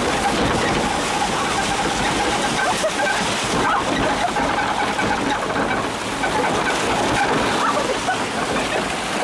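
Water rushing and sloshing along a log flume trough around the floating log boat, a steady noise with no sudden splash.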